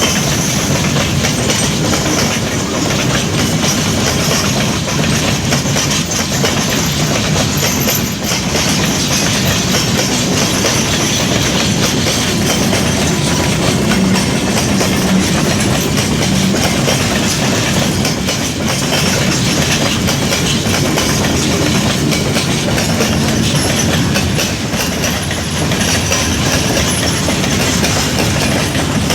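Long freight train of grain hopper wagons rolling past, steel wheels running on the rails with a steady, unbroken rolling noise and occasional clicks.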